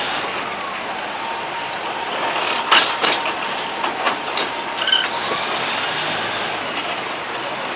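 Diesel railcar train running slowly on the track: a steady rumble and rattle, with a cluster of sharp clicks and short high wheel squeals about three to five seconds in.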